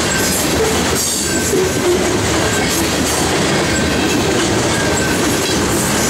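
Covered hopper cars of a freight train rolling past: a steady rumble and clatter of steel wheels on the rails, with a few brief, faint high wheel squeals.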